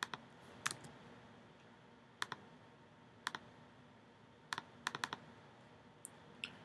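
Faint, sharp clicks of a computer mouse and keyboard keys, mostly in quick pairs spaced a second or so apart, as a list is pasted into a spreadsheet and the column is adjusted.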